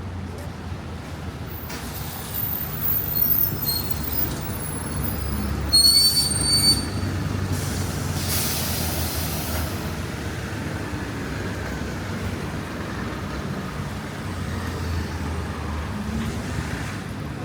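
A train running along the tracks with a steady low rumble; a few seconds in, the wheels squeal high-pitched for several seconds, loudest about six seconds in.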